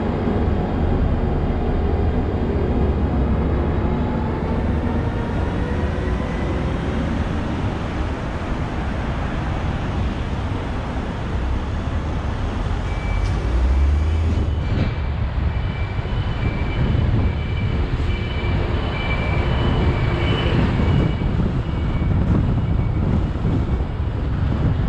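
Car driving through town streets, a steady low engine and road rumble, with the engine note climbing over the first few seconds as it picks up speed.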